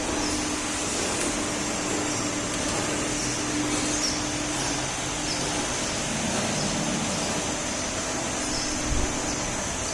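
Tomato roller sizing machine running: a steady mechanical hum with a constant high whine, and a single low thump near the end.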